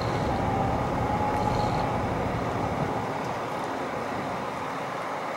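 Highway traffic going by: a steady rush of tyre and engine noise, with a low rumble that fades about three seconds in.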